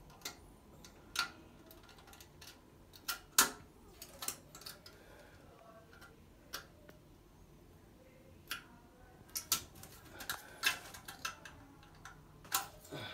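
Irregular sharp clicks and knocks of a metal claw pickup tool working against a porcelain toilet bowl and drain as it is pushed and twisted in, sparse at first with a faster cluster around ten seconds in.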